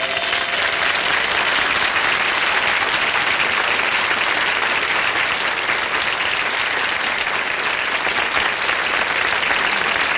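Studio audience applauding steadily, as the last held note of the song fades out in the first second.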